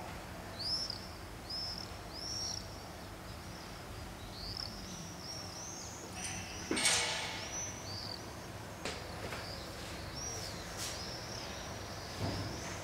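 Small birds chirping in quick short arched notes, one or two a second, over a steady low background hum of the town. A sharp knock comes about seven seconds in, the loudest moment, and a softer low thump near the end.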